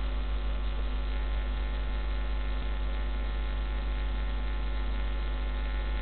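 Steady electrical mains hum in the recording, a low drone with a buzzy row of overtones above it, unchanging throughout.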